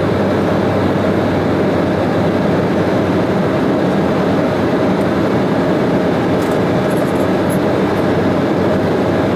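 Steady cabin noise inside an Embraer E195 airliner in flight: the even drone of its wing-mounted General Electric CF34-10E turbofan engines mixed with the rush of air past the fuselage, heavy in the low and middle range.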